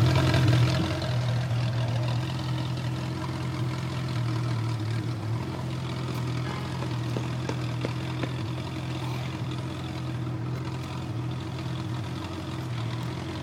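Ferrari F40's twin-turbo V8 idling steadily through its triple exhaust tips, settling just after a rev and growing a little quieter over the first few seconds.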